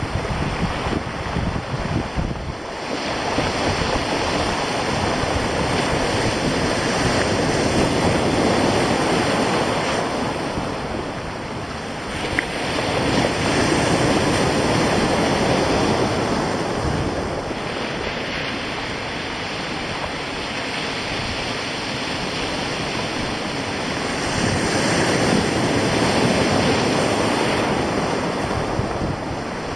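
Sea surf breaking on a stony shore, the wash swelling and falling in slow surges every several seconds, with wind blowing.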